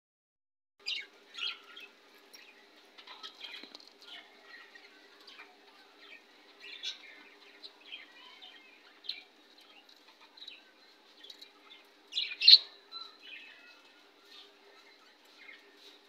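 Budgerigars chirping in short, scattered calls, the loudest about twelve seconds in.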